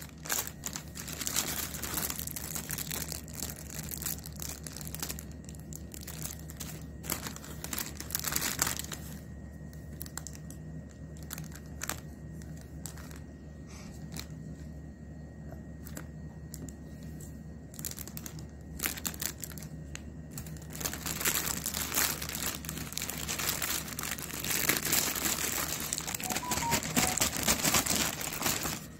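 Clear plastic packaging crinkling and rustling as it is handled. The rustling is heavy for the first several seconds and again over roughly the last ten seconds, with a quieter stretch in between broken by scattered clicks and taps.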